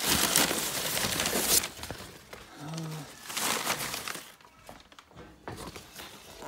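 Newspaper packing rustling and crumpling as hands dig through a shipping box, in two noisy bursts, the first and longest at the start. A short low hum comes near the middle, and after that the handling goes quieter with a few light clicks of plastic deli cups.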